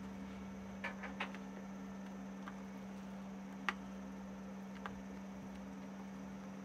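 A spoon clicking and tapping against the bowl and plate while diced topping is spooned onto a tortilla egg: a few short, sharp ticks, with the loudest a little after the middle. A steady low hum runs underneath.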